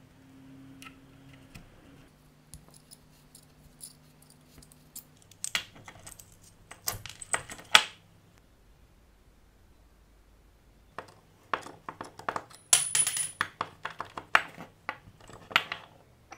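Small steel bearing puller and metal parts being handled: sharp clicks and clinks of metal on metal, a short run about six seconds in and a longer, busier run from about eleven seconds.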